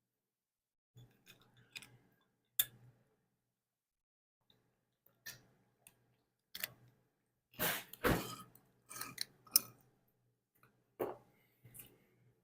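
Close-up eating sounds of barbecue chicken: separate smacks, clicks and wet chewing bursts with short quiet gaps between them, the loudest cluster a little past halfway.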